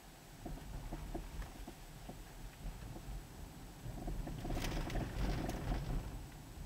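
Low rumble of a car's cabin while driving on a city street, with scattered knocks and rustles that grow louder and rougher about four seconds in and ease off near the end.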